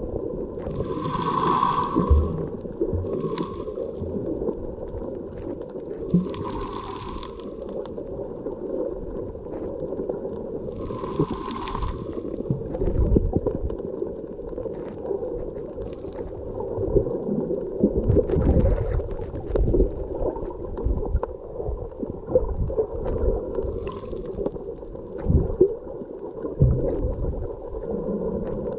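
Underwater sound picked up by a camera below the surface: a steady low hum with water sloshing and gurgling. In the first half come three hissing swells about five seconds apart.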